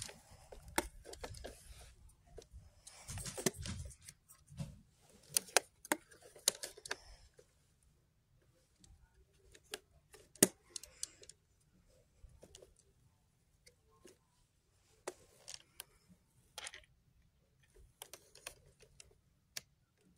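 Scattered clicks, taps and rustles of a hand handling a Kaito Voyager KA500 portable weather radio. A sharper knock about ten seconds in is the loudest.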